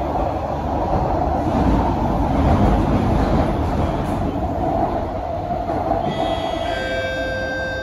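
Heard from inside the car: an SMRT C151A metro train running, a steady rumble of wheels and car noise that swells a little midway. About six seconds in, a set of thin, high whining tones joins the rumble.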